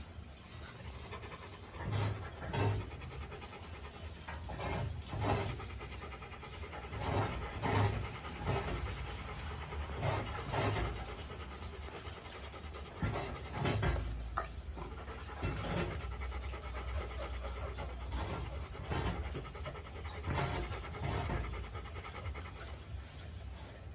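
Rottweiler panting with its tongue out, a rhythmic run of quick breaths.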